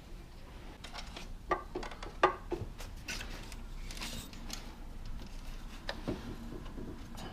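Scattered clicks and knocks of a wrench and metal engine parts being handled while a serpentine belt is worked onto its pulleys, with two sharper knocks about a second and a half and two seconds in, and some rustling between.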